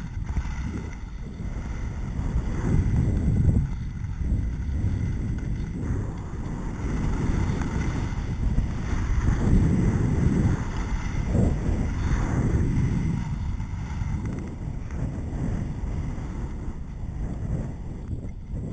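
Wind rushing over a skier's body-worn action camera microphone during a downhill run, a low rumble that swells and eases every few seconds, with skis hissing over packed snow underneath.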